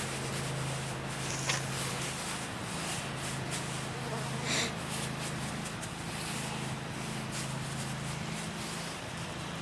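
A few short rustles and soft clicks as mesh bags of wood shavings are handled and packed into a hive, over a steady low hum.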